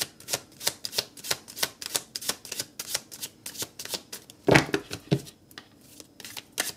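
A tarot deck being shuffled by hand: a steady run of quick card slaps, about three a second, with a louder thump about four and a half seconds in and fewer slaps near the end.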